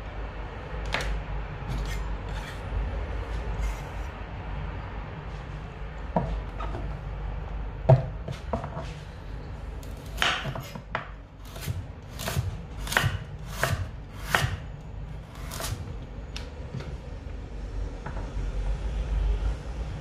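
Kitchen knife chopping food on a cutting board: a few scattered cuts, then about ten seconds in a run of about eight chops at roughly two a second, over a low steady hum.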